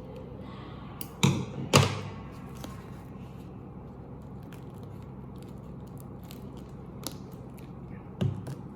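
A parcel's wrapping being opened by hand: a few sharp crackles and snaps of the packing, the two loudest close together a little over a second in, another near the end.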